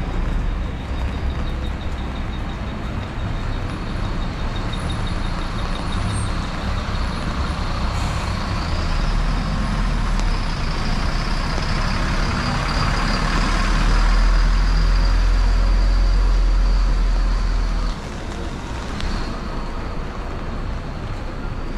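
A heavy road vehicle's engine running close by over steady street noise. Its deep rumble builds and is loudest in the second half, then drops away suddenly near the end.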